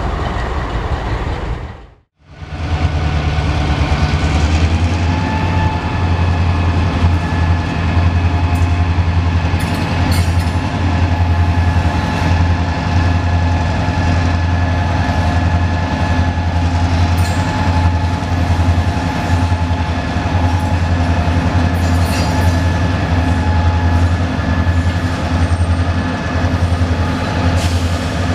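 Diesel locomotives of a pair of GP38-2 switchers rumbling steadily as they roll slowly in, with a faint steady whine above the engine sound. The sound cuts out for an instant about two seconds in.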